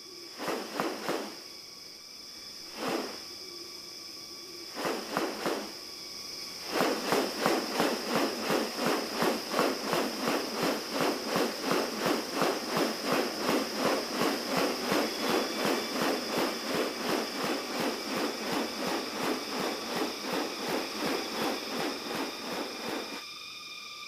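Rainforest animal sounds: a steady high insect whine, a few short calls in the first seconds, then a long run of rapid pulsing clicks, about two pulses a second, that starts about seven seconds in and stops near the end.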